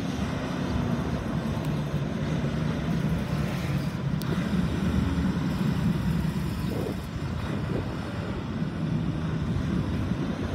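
Ford E450 box truck's 6.8-litre V10 engine idling with a steady drone.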